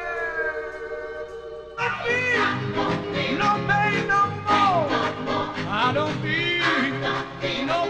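Soundtrack song with a male vocalist: a long held note glides slightly down and fades, then about two seconds in the band and singing come back in.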